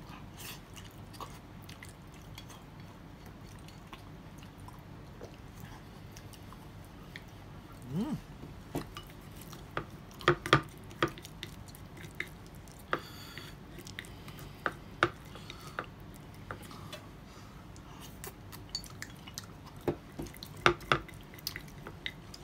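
Wooden chopsticks clicking and scraping against a ceramic gratin dish while the food is scooped out, with quiet chewing. The clicks come in scattered clusters, mostly in the second half.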